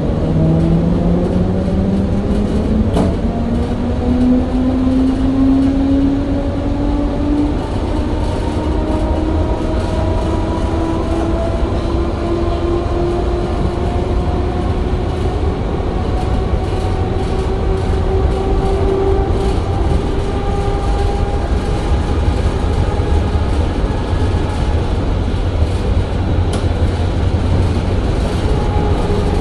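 Munich P 3.16 tram heard from inside the passenger saloon, under way. The traction drive whines, rising in pitch as the tram gathers speed over the first several seconds and then levelling off at running speed, over a steady rumble of wheels on rails. A sharp click comes about three seconds in and another near the end.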